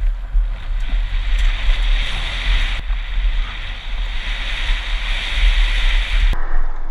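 Wind buffeting a helmet-mounted action camera's microphone while a downhill mountain bike runs fast over a gravel and dirt trail: a heavy low rumble with a steady hiss of tyres on loose ground. The sound drops away abruptly shortly before the end.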